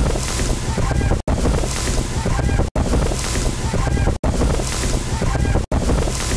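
Wind buffeting the microphone over the steady roar of Niagara Falls' falling water and spray, with heavy low rumble. The sound is cut by short dropouts about every second and a half.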